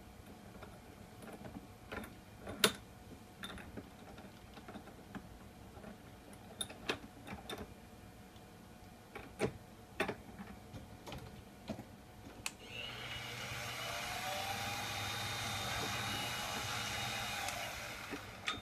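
Clicks and knocks of a polyurethane blank being handled and clamped in the mill-drill's steel vise, with one sharp knock a few seconds in. Near the end the mill-drill's spindle motor runs for about five seconds with a whine that rises and then holds, before it stops.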